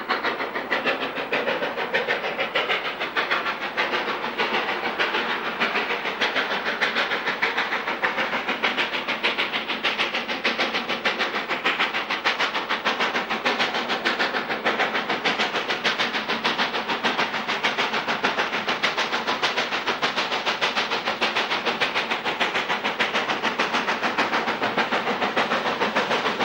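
Steam locomotive approaching under steam, its exhaust beating in a fast, steady rhythm over a continuous hiss.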